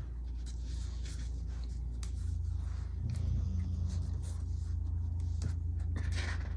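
Close rustling and scratching of paper and sticker sheets being handled, over a steady low rumble from a helicopter flying around overhead that grows louder about two to three seconds in.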